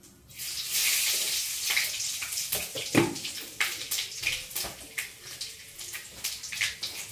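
Hot oil sizzling and spitting in a steel wok on a gas stove: a sudden loud hiss just after the start that settles into irregular crackles and pops.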